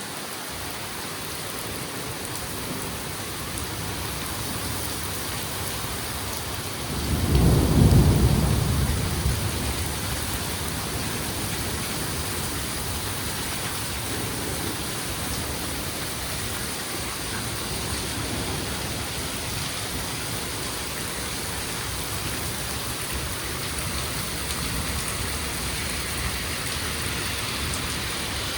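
Steady rain hissing, with one rumble of thunder about seven seconds in that swells quickly and fades over two or three seconds.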